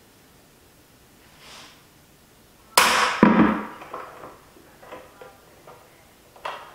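Monofilament fishing line breaks under about 11 pounds and a plastic bucket of weights drops onto a concrete floor about three seconds in: a sudden loud bang with a rattling clatter, then a few lighter knocks as it settles. The line has failed below its 12-pound rating.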